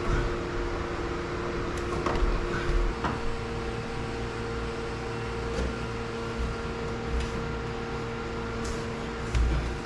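Steady electrical hum of a few held tones, with a few light knocks and rustles as cable is handled against the wooden ceiling joists.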